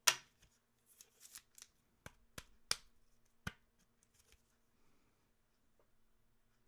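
Trading cards and a clear plastic card holder being handled: a string of sharp clicks and taps, the strongest in the first three and a half seconds, then faint ticks.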